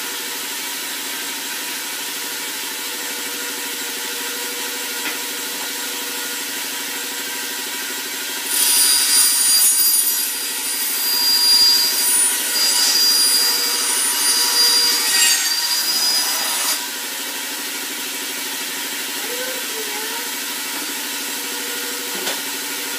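Homemade bandsaw running steadily, then cutting through a block of wood for about eight seconds, starting a little over a third of the way in. The cut is louder and adds a high whine over the running sound, then the saw runs on alone.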